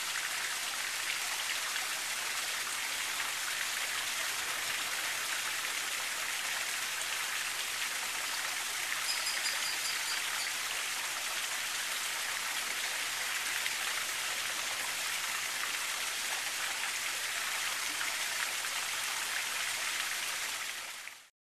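Steady rushing-water hiss, with a quick run of high bird chirps about nine seconds in; the sound cuts off suddenly near the end.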